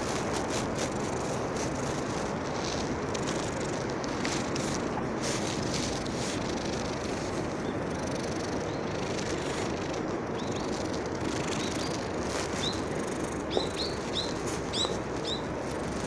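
Steady rushing outdoor background noise with soft rustles, and a small bird chirping several times in short rising notes near the end.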